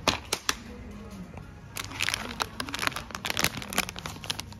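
Plastic candy bag crinkling as it is picked up and handled, starting about two seconds in, over background music. A few sharp clicks come at the start.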